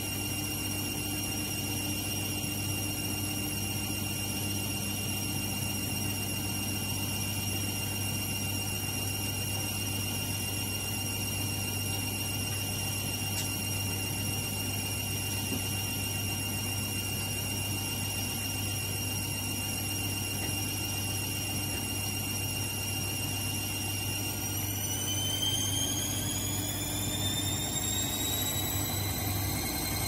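AEG Lavamat front-loading washing machine spinning, its motor giving a steady high whine over a low hum. About 24 seconds in the whine starts rising in pitch as the drum speeds up.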